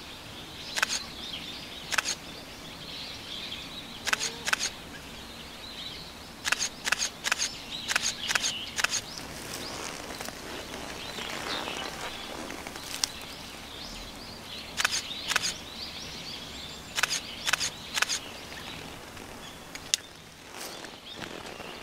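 Camera shutters clicking in irregular runs of single shots, over a steady outdoor hiss.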